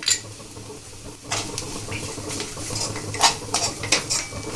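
A steel spoon clinking and scraping against a steel kadhai, with a faint sizzle from the frying onion and spice mixture. The clinks start about a second in and come irregularly.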